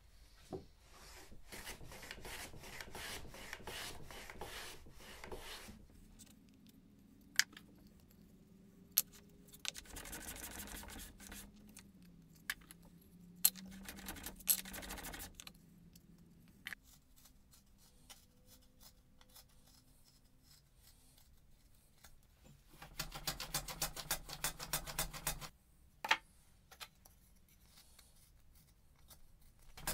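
Quiet hand-tool work on thin softwood: runs of quick scraping, slicing strokes as a blade is drawn along a steel straightedge and pares the wood, with sharp taps and clicks between the runs.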